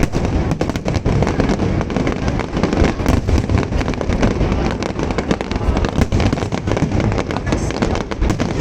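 Aerial fireworks exploding in a dense, continuous barrage: rapid sharp crackles and bangs over a constant rumble of bursting shells.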